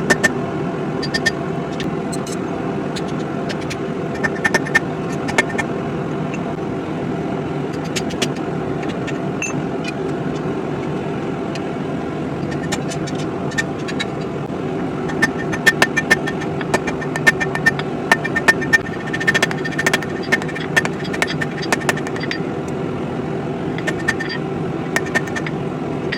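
Electric grinder running steadily while steel is ground against it, with a faint high ring that comes and goes and frequent sharp ticks and scrapes of metal on the abrasive, busier in the second half.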